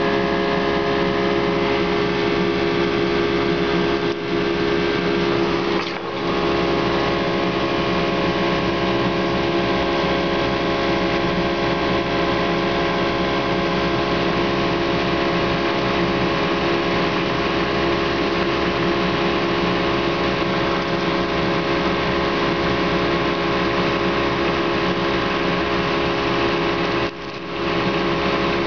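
A machine running with a loud, steady mechanical drone and a hum of several steady tones, dipping briefly about four, six and twenty-seven seconds in.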